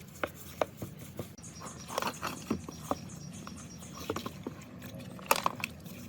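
Light, irregular taps and clicks from hand work on small metal gearbox parts, with a cluster of sharper taps about five seconds in.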